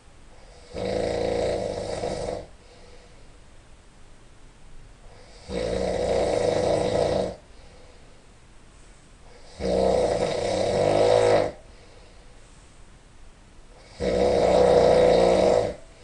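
A person snoring in sleep: four long, rattling snores about four seconds apart, each a little louder than the last.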